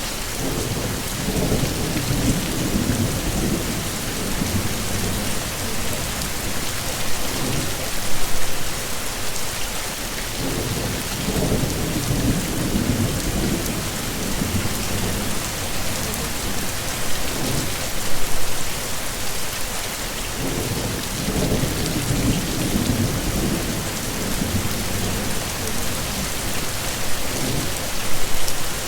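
Steady heavy rain falling, with low rolls of thunder rumbling under it three times, about ten seconds apart.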